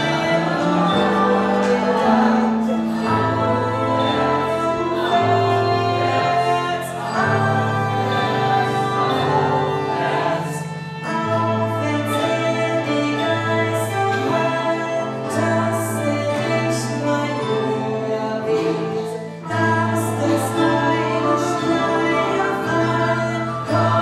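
A young woman singing a German-language musical-theatre ballad live on stage, with live accompaniment holding low bass notes, each about a second long, beneath her voice.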